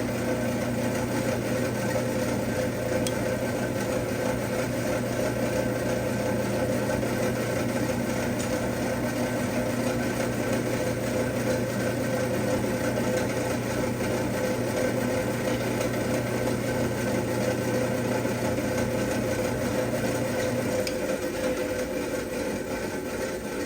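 Metal lathe running steadily with a constant machine hum, most likely turning the shaft. A low hum drops out near the end while the rest keeps running.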